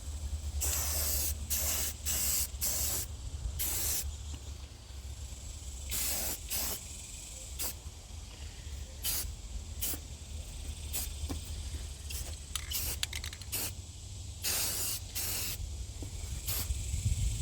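Aerosol spray-paint can hissing in about a dozen short bursts, each under a second, as a coat of paint goes on, over a low steady rumble.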